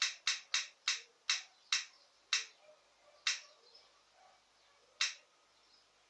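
Roulette-wheel game app ticking as its wheel spins down: sharp clicks that slow steadily from several a second to over a second apart, the last one about five seconds in as the wheel comes to rest.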